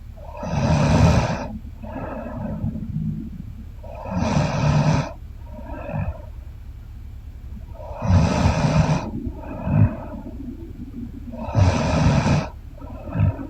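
A woman snoring in her sleep: four loud, rough snores about every four seconds, each followed by a shorter, softer breath.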